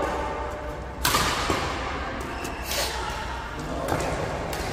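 Badminton rackets striking a shuttlecock during a rally: several sharp, separate smacks, the loudest about a second in, ringing in a large hall.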